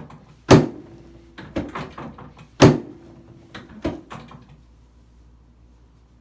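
Chiropractic drop table's drop section slamming down under the adjuster's thrusts: two loud sharp clacks about two seconds apart, each with a short ring, with smaller knocks between and after them. The adjustment is aimed at a sacrum found to be off on the left.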